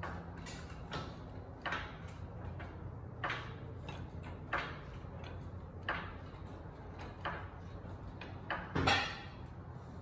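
Craftsman hydraulic floor jack being worked by its long handle: a series of short mechanical strokes about once every second or second and a half, the strongest about nine seconds in.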